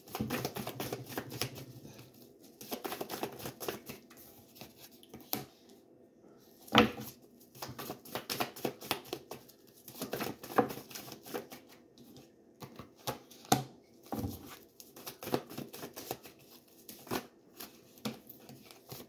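A deck of tarot cards being shuffled by hand, overhand style: irregular bursts of cards rustling and slipping against each other, with a few sharper slaps of the cards, the loudest about seven and about thirteen and a half seconds in.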